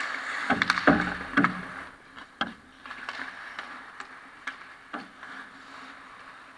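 Ice hockey play close to the net: skate blades scraping the ice, with a quick run of sharp clacks from sticks and puck in the first second and a half and a few single clacks later.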